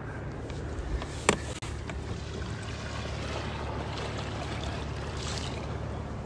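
Water lapping and trickling against a kayak's hull, steady and fairly quiet, with one sharp click a little over a second in.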